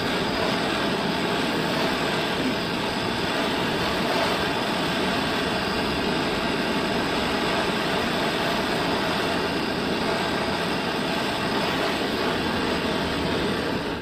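Handheld gas torch burning with a steady hiss, its blue flame heating the aluminium alloy wheel's rim at the dent.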